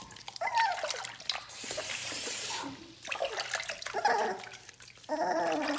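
Water splashing in a bath as a six-week-old Shih Tzu puppy is dipped to rinse the soap off, with a burst of splashing about two seconds in. The puppy whines and cries in short, wavering complaints several times, the last near the end.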